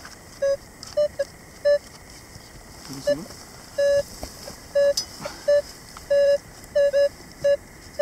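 Metal detector giving short beeps at one fixed pitch, a dozen or so at uneven intervals, as the search coil is swept over the dug hole: it is signalling a buried metal target.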